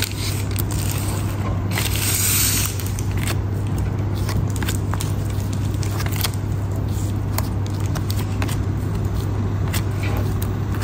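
Trading cards being handled and slid against one another: soft clicks and scrapes, with a longer, louder rustle about two seconds in, over a steady low hum.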